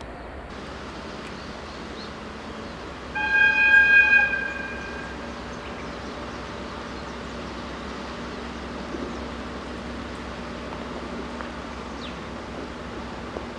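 DE10 diesel locomotive's horn: one loud steady blast of about a second and a half, about three seconds in, over a faint steady hum and outdoor background.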